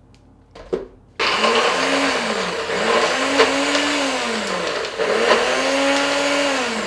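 A NutriBullet blender's motor starts about a second in, after a short clunk as the cup is pressed onto the base, and runs loudly while blending a thick pistachio-basil pesto. Its pitch rises and falls three times.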